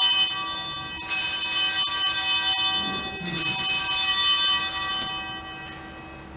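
Altar bells rung at the elevation of the host, just after the words of consecration at Mass. One bright, high ring is already sounding, a second begins about a second in and a third about three seconds in, each dying away, the last near the end.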